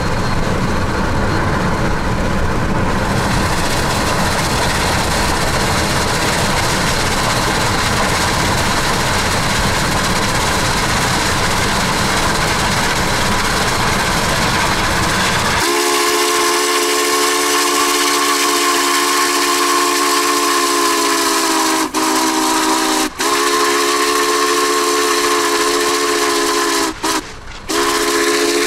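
Steady road and wind rumble from a car driving alongside the train. About halfway through, the steam whistle of Union Pacific 844, a 4-8-4 Northern locomotive, starts up: a chord of several steady tones, blown in long blasts with short breaks between them.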